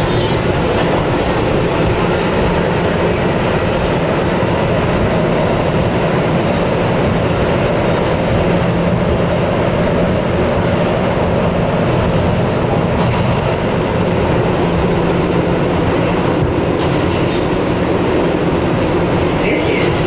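Kawasaki R211A subway car running along the track, heard from inside the car: a steady, even rumble of wheels on rail with a low hum underneath.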